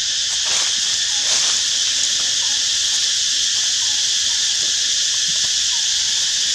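A steady, loud insect chorus shrilling without a break, with a few faint short chirps now and then.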